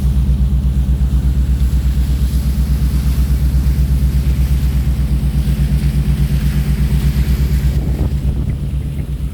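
An engine running steadily with a low, evenly pulsing drone, under a hiss of wind and water.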